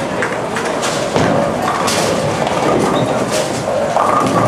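Busy bowling-alley din: balls thudding and pins crashing on the surrounding lanes, several knocks about a second apart over a steady hubbub of the house, with faint voices.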